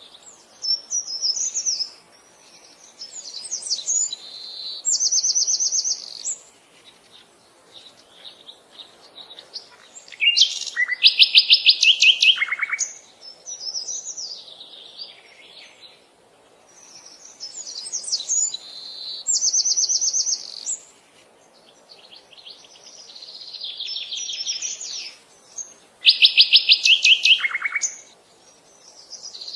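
Birdsong: varied phrases of high chirps and whistles with short pauses between them, and a loud, fast trill of rapidly repeated notes about eleven seconds in and again near the end.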